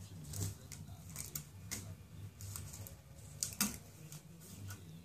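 Curly ribbon crinkling and rustling as a cat swats and grabs at it, in irregular short crackles and taps, the loudest pair about three and a half seconds in.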